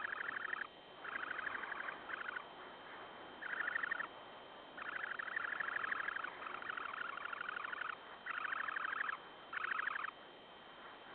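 Semipalmated sandpiper giving a run of rapid, buzzy trills, about eight bouts of half a second to a second and a half each with short pauses between, at the nest during a nest relief between incubating parents.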